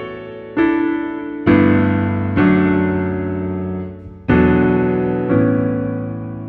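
Background music: gentle piano chords, each struck and left to fade, about five in a row.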